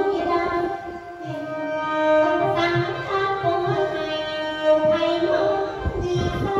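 Khaen, the Isan bamboo free-reed mouth organ, playing sustained chords over a held drone, the instrumental lead-in of a mor lam song.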